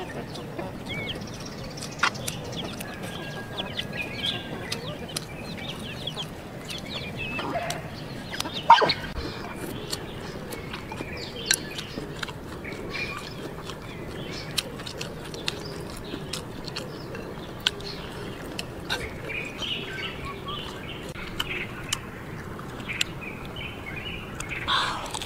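Eating sounds: wooden chopsticks clicking against a ceramic rice bowl, with chewing and scattered sharp clicks, one louder knock partway through. Birds call in the background.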